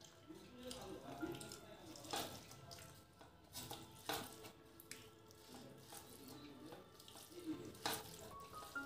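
Faint sounds of rice and dal being mixed by hand on a metal plate: soft squelching, with four sharp clicks spread across the few seconds.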